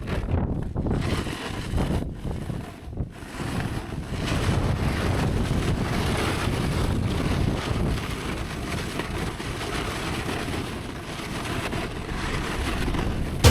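Wind buffeting the camera microphone: a steady rushing noise with a heavy low rumble, briefly dropping out a few times in the first three seconds.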